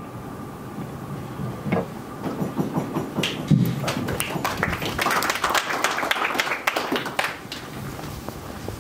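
Audience applauding, starting about three seconds in, swelling, and fading out near the end, with a few scattered voices before it.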